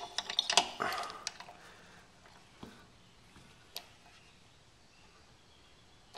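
Metal clicks and clinks of a wrench being fitted to the cylinder head bolts of a Tecumseh small engine: a quick cluster in the first second or so, then two single clicks about a second apart.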